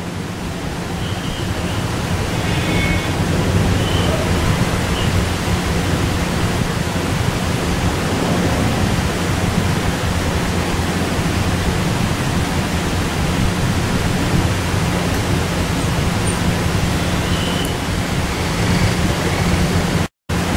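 Steady loud hiss with a low hum underneath, broken by a sudden brief dropout near the end.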